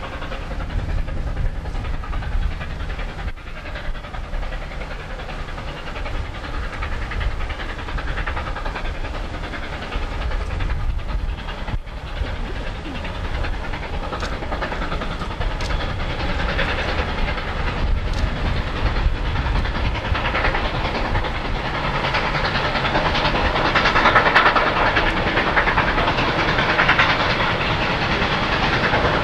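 Nickel Plate 2-8-4 Berkshire steam locomotive No. 765 and its train running along the line: a steady rush of rumble and hiss that grows louder over the last several seconds as the train draws nearer.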